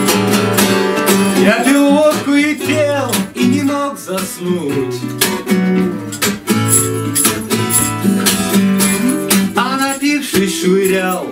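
Steel-string acoustic guitar strummed in a steady rhythm of chords, an instrumental passage between the verses of a song.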